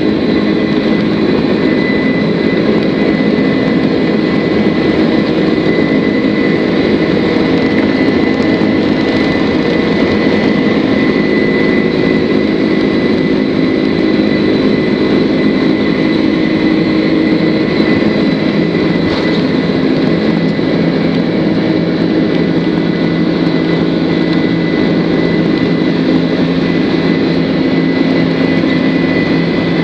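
Boeing 767-300's turbofan engines at takeoff thrust, heard from inside the cabin through the takeoff roll and liftoff: a loud, steady rushing noise with a high whine held throughout.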